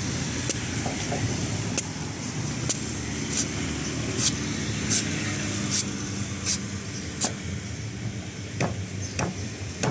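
Meat cleaver slicing the green husk off a young coconut in repeated quick strokes, each a short sharp cut, about three every two seconds, over a steady background hum.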